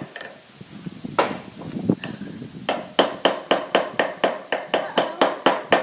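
Hammer driving a nail: a couple of separate blows, then a quick steady run of about four strikes a second, each with a short metallic ring.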